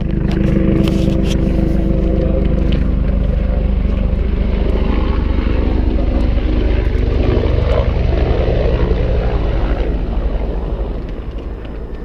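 Propeller aircraft flying low overhead, a steady engine drone that fades away over the last couple of seconds.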